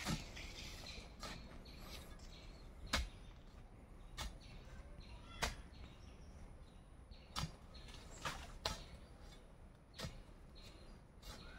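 Long iron digging bar jabbing into the soil and roots under a coconut palm's root ball, undercutting it to free the palm for transplanting: about nine sharp strikes at irregular intervals, some two close together.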